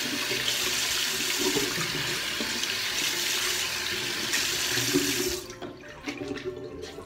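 Bathroom tap running into a basin, the stream splashing over hands and a fabric makeup-remover pad as it is rinsed. The tap shuts off about five seconds in, leaving a few faint drips and splashes.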